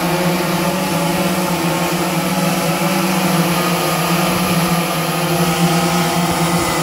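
Aerigon cinema drone, a large multirotor carrying a camera gimbal, hovering: the steady buzzing hum of its propellers and motors, held at one pitch.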